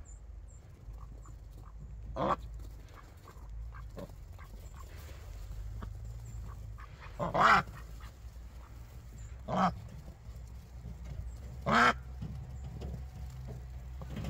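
Domestic mallard-type ducks quacking: four loud, short quacks a couple of seconds apart, the loudest about halfway through.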